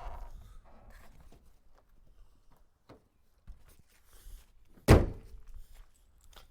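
A single heavy thunk about five seconds in, a car bonnet being shut after the battery's positive terminal has been reconnected, with faint handling clicks before it.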